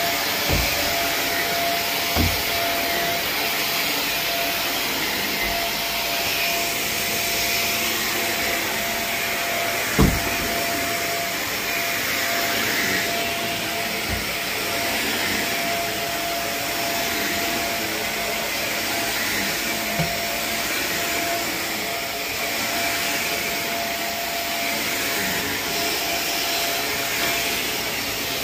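Carpet steam-cleaning (hot water extraction) machine running with its vacuum pulling through the wand: a steady roar with a constant high whine. A few dull thumps sound over it, the loudest about ten seconds in.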